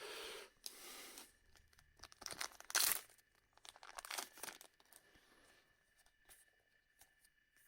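Trading cards and a booster pack wrapper being handled, a papery rustle and scrape. It is soft over the first second, louder in a short burst about two to three seconds in, then a few faint scrapes.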